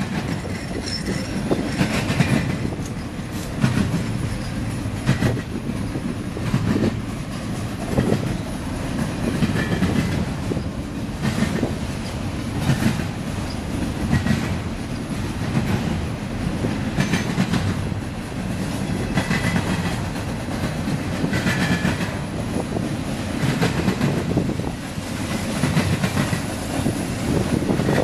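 Double-stack intermodal freight cars rolling past with a steady low rumble. Wheels clack over rail joints about every second and a half.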